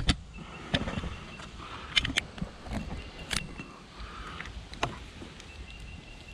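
Handling noise from a camera being picked up and turned around: a run of sharp clicks and knocks over a low rumble of wind and movement.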